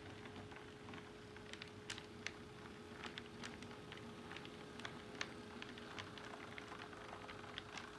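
Model freight train rolling slowly past: faint, irregular clicking of its wheels over the track joints, with a steady hum underneath.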